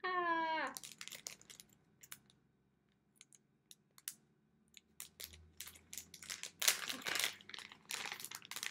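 Face-mask packaging crinkling and rustling as it is handled and pulled open, sparse at first and then dense and crackly over the last few seconds. A short falling vocal hum comes at the very start.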